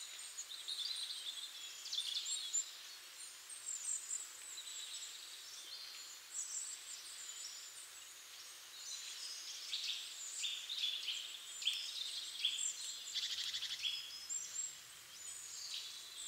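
Small birds chirping and calling: a continual scatter of short, high-pitched chirps and trills, with a fast ticking rattle about 13 seconds in.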